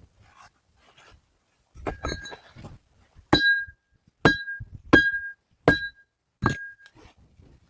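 Five hard hammer blows, one a little under every second, each ringing briefly at a clear pitch like struck metal, after a few lighter knocks. Typical of tool work while building a stone shelter.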